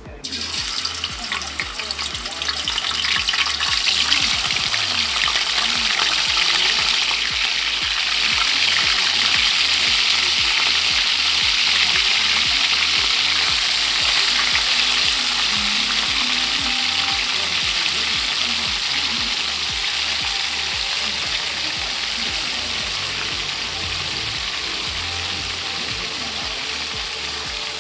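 Pork slices frying in hot oil in a pan: a loud, steady sizzle that sets in suddenly as the meat goes in, then eases off slowly as the pork browns.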